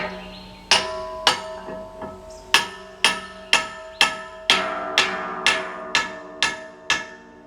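About a dozen hammer blows, roughly two a second, tightening the nut that holds a large circular sawmill blade on its mandrel. Each blow leaves the steel blade ringing, and the ringing builds up and hangs on after the last blow.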